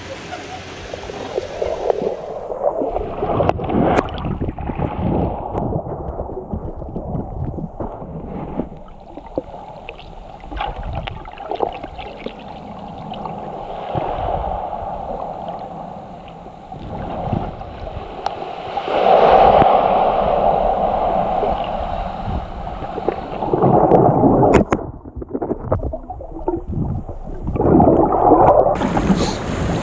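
Muffled water sloshing and gurgling, heard through an action camera underwater in shallow sea, with louder stretches of surge about two-thirds of the way through. Near the end the sound turns brighter and hissier as the camera comes up to the surface.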